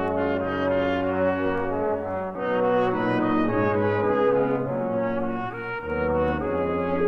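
Background music: brass instruments playing slow, held chords that change every second or so.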